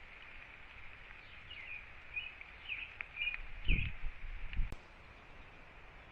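A bird calling a string of short chirps from about a second and a half to four seconds in, over a steady faint hiss. Two low thuds close to the microphone come near the middle and are the loudest sounds.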